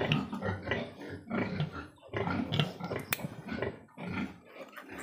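Newborn piglet squealing and grunting in short repeated cries while its needle teeth are clipped, with one sharp click about three seconds in.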